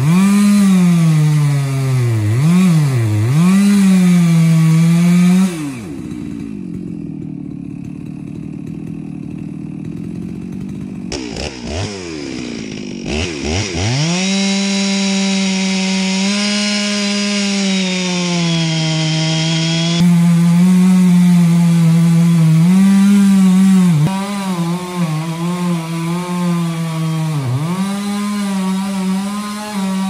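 Two-stroke chainsaw cutting into a dead standing tree at high revs, its pitch sagging and recovering as the chain bites into the wood. About six seconds in the engine drops to a lower, rougher running for several seconds. It revs back up sharply around twelve seconds in and carries on cutting, still dipping under load.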